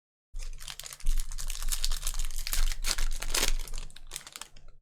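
Chrome trading cards being handled close to the microphone: a rapid run of small clicks and rustling as the cards slide and flick against each other.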